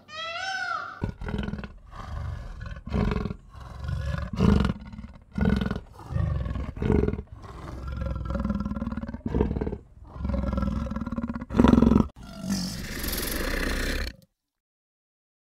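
A cat's meow fades in the first second, then a tiger growls and roars, about ten deep roars roughly a second apart. Near the end comes a longer breathy, hissing snarl, then the sound cuts off.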